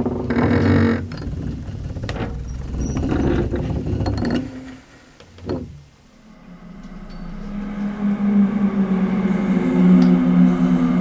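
A sudden loud, noisy burst with several knocks over the first few seconds, then a low droning tone that swells up from about six seconds in, in the manner of an eerie horror-film soundtrack drone.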